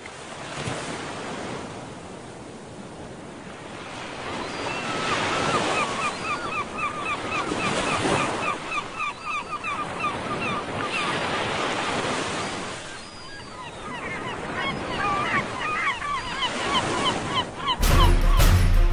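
Surf breaking, swelling and fading every few seconds, with a bird calling in a fast series of short repeated notes through the middle. Music cuts in suddenly near the end.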